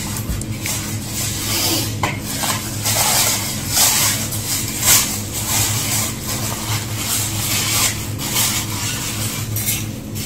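Paper and plastic food wrapping crinkling and rustling as it is handled and pulled open by hand, a dense run of crackles, over a steady low hum.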